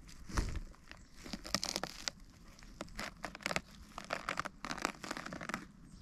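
Irregular rustling and crackling: a rapid series of crisp, uneven bursts, loudest about half a second in and again around one and a half to two seconds in.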